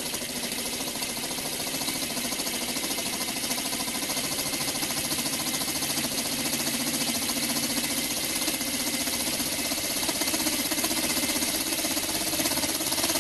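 Small single-cylinder rotary-valve model steam engine running fast on compressed air: a rapid, clunky beat with a steady hiss of exhausting air, getting a little louder as it is sped up.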